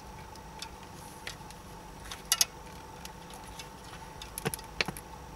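Sharp plastic clicks and light rattles as the airbag module's wiring connectors are handled and clipped into place, with a loud double click a little over two seconds in and a quick run of clicks about four and a half seconds in.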